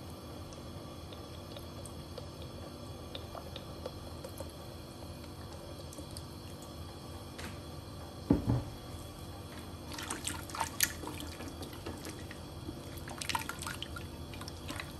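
Cooking oil poured from a bottle onto sliced onions in a metal pressure cooker. A single dull thump comes about eight seconds in. Near the end there are clicks and scrapes as a silicone spatula stirs the onions against the pot.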